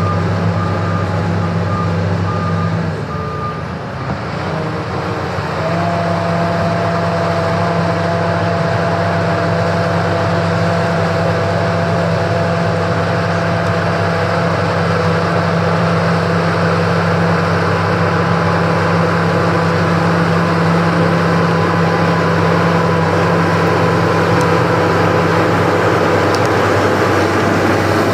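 SEM 816 bulldozer's diesel engine running steadily, with its reverse alarm beeping for the first few seconds. The engine dips briefly about three seconds in, then picks up again and runs evenly with a steady high whine over it.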